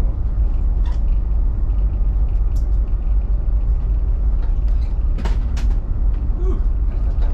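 Escort tug's engines running under load inside the wheelhouse, a steady deep rumble. There are a couple of short knocks, about a second in and again about five seconds in.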